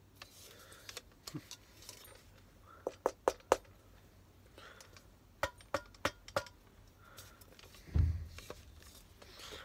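Bulgarian M72 steel helmet being handled, its shell and chinstrap hardware giving sharp metallic clicks and clinks: a quick cluster of three about three seconds in, and four more between about five and a half and six and a half seconds. A dull thump follows about eight seconds in.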